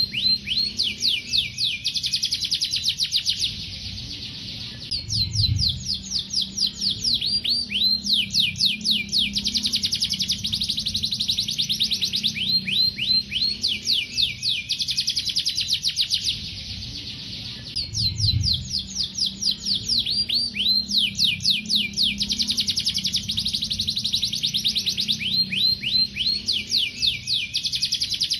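Domestic canary singing long, fast rolls of rapid repeated notes, phrase after phrase, with brief pauses about 4 and 16 seconds in. This is the sustained, energetic 'gacor' song used as a master recording for training young canaries.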